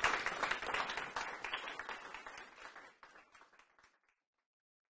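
Audience applauding, a dense patter of many handclaps that fades steadily away to silence over about four seconds.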